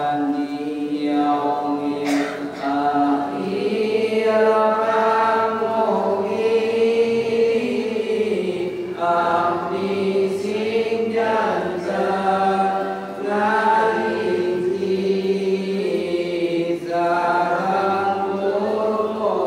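A man's voice chanting an Islamic devotional recitation in long melodic held notes that slowly rise and fall, with short breaths between phrases.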